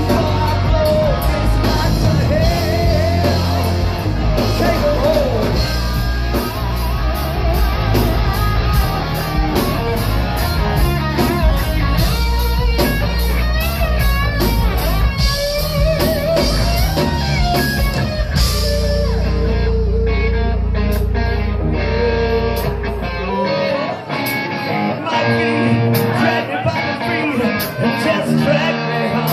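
Live rock band playing loud, with a lead electric guitar playing bent notes over drums and bass. About two-thirds of the way through, the cymbal beat stops, and shortly after the bass drops out, leaving the guitar in a thinner, choppier part.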